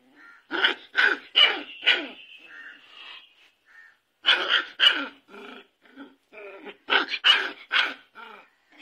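Puppy barking in quick runs of short, sharp yaps, three groups of them.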